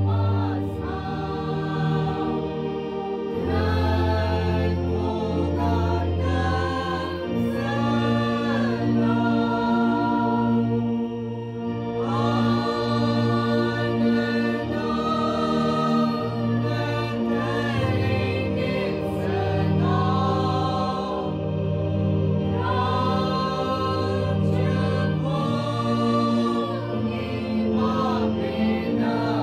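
A choir singing a Hindi hymn, in phrases of long held notes over steady low tones.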